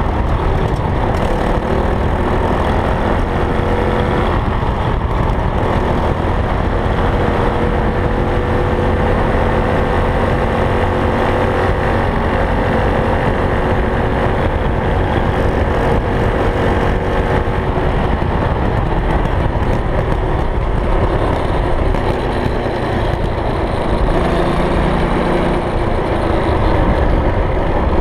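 Small single-cylinder engine running while riding along, its pitch drifting up and down with the throttle, over a steady low rumble.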